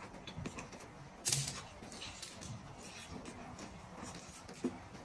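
Close-up eating sounds: chewing and gnawing meat off a grilled lamb rib, with soft wet mouth clicks and smacks. A louder smack or bite comes just over a second in, and a smaller one near the end.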